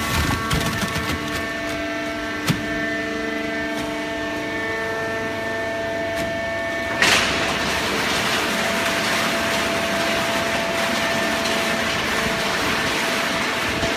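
Hydraulic cardboard box baler running, its pump whining steadily, with a few knocks in the first seconds. About halfway a sudden clunk, after which a louder rushing noise carries on alongside the whine.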